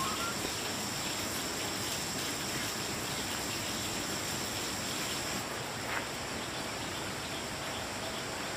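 Insects droning in two steady high tones over a constant even hiss; the lower tone drops out about five seconds in. A single sharp click comes about six seconds in.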